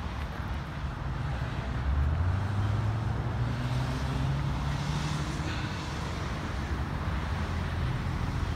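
A motor vehicle's engine running nearby: its low hum grows louder about two seconds in, rises slightly in pitch, then eases off around six seconds in, over steady outdoor background noise.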